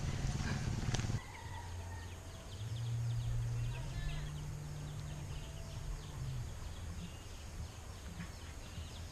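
Tropical village ambience: many birds chirping quickly, with chickens calling and a low drone that steps up in pitch midway. A low rumble stops abruptly about a second in.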